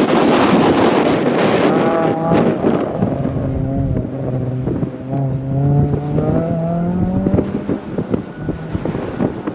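A Renault Clio rally car passes close with a rush of noise, then its engine revs climb in steps as it accelerates away through the gears, the revs dropping briefly between shifts. Wind noise buffets the microphone.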